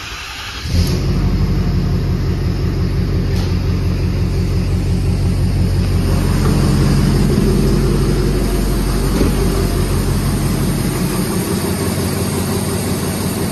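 Ford 6.7 Power Stroke V8 turbodiesel being started for the first time after its fuel system was opened up: a brief crank, then it catches less than a second in. It then runs on at a steady idle.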